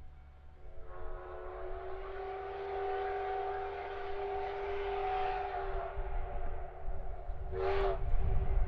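Steam whistle of a JNR Class D51 steam locomotive: one long blast of about five seconds, then a short blast near the end. A low rumble of the approaching train grows near the end.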